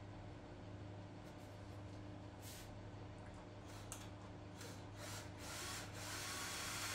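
Faint steady low hum with a few short, soft brushing noises that grow a little louder near the end.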